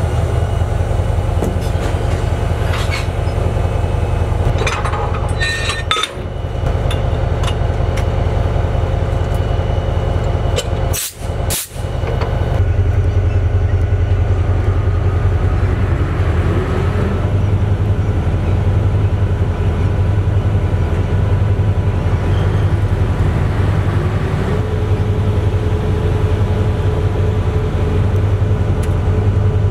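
EMD 16-645E3B two-stroke V16 diesel of a Di 4 locomotive running at idle with a steady low drone. The drone breaks briefly a little past ten seconds, then goes on steadily, with a faint higher tone joining in the last few seconds.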